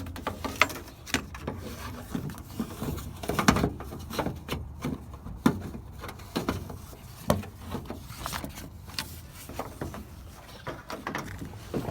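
Irregular clicks and knocks of hand tools and parts being handled at an open car door, the loudest about three and a half seconds in.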